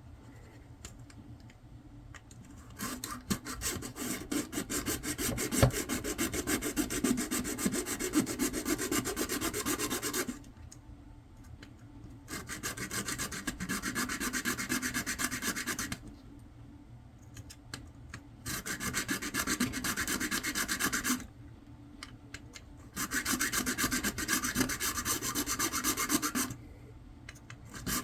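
Tool cutting through the plastic casing of a chart plotter: a fast, rasping scraping in four bursts of several seconds each, with short pauses between.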